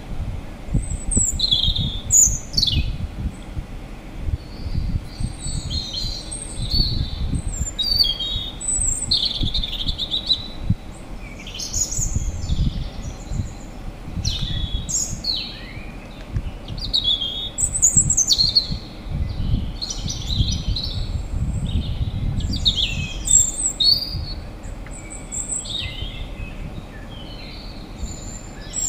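Small birds chirping and calling again and again: short high chirps and quick downward-sweeping calls, over a low rumble.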